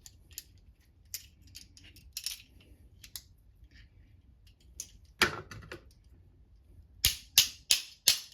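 Steel parts of a pair of locking pliers clinking and clicking lightly as they are handled and reassembled, then a louder knock about five seconds in and four sharp metal strikes in quick succession near the end.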